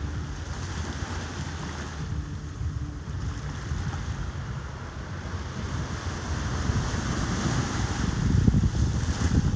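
Wind buffeting the microphone over the steady wash of surf breaking on the beach, the wind growing louder near the end.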